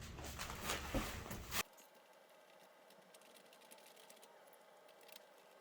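Rapid clicks and rustling of a BMX bike and its parts being handled during assembly. About a second and a half in it cuts off suddenly to near silence with a few faint ticks.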